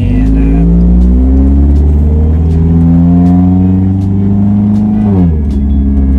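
Supercharged Mazda MX-5 Miata ND four-cylinder engine breathing through a Borla exhaust with custom 4-into-1 headers, accelerating hard with a throaty note. The pitch climbs, dips briefly about two seconds in, climbs again for about three seconds, then falls sharply as the revs drop near the end. Heard from the open cockpit with road and wind rumble underneath.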